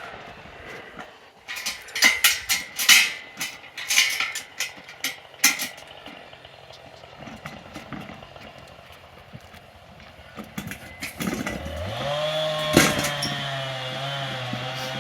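A chainsaw's engine fades out at the start. About two to six seconds in comes a run of sharp knocks. Near the end the two-stroke chainsaw engine rises in pitch and runs steadily, with one sharp crack just after it picks up.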